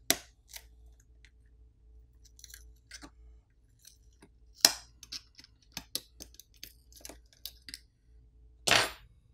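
Metal pry tool clicking and scraping under a smartphone's small bottom circuit board as it is pried up off its adhesive, with irregular sharp ticks and two louder crackles, one about halfway through and one near the end.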